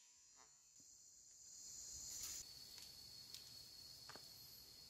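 Faint, steady, high-pitched insect trilling from the surrounding forest, with the note shifting lower about two seconds in, and a few faint ticks.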